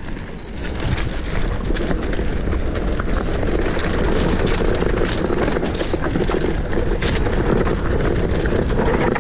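Mountain bike descending a dirt trail: tyres rolling over dirt and leaves, with the bike rattling and clicking over bumps and wind rushing over the microphone. It grows louder about a second in as the bike picks up speed.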